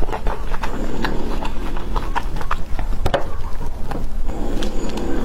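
Close-miked chewing of fruit, with many small wet mouth clicks and smacks in an irregular patter.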